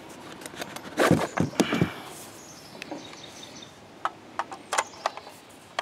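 Magazine handling on a Galil-pattern rifle: a burst of rustling and knocks about a second in, then several sharp clicks and knocks near the end as a 50-round Galil magazine is pushed and rocked into the tight magazine well. The magazine goes in but does not quite latch.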